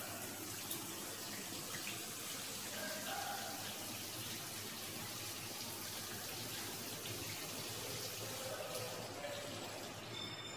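An overhead shower head running: a steady spray of water hissing.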